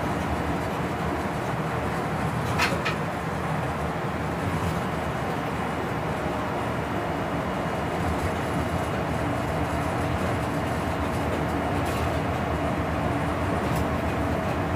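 Cab noise of a German class 139 electric locomotive under way: a steady rumble of wheels on rail with a constant hum running through it. A sharp click comes about two and a half seconds in.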